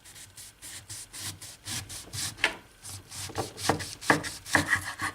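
A kitchen knife sawing through a black radish to cut off its top, in a run of repeated short strokes, a few a second.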